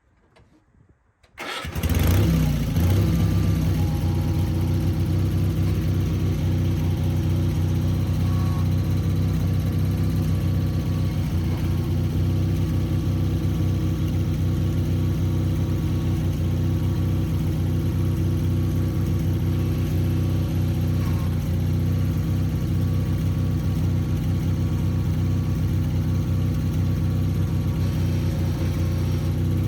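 Sears Craftsman FF24 garden tractor's engine starting about a second and a half in, then running steadily.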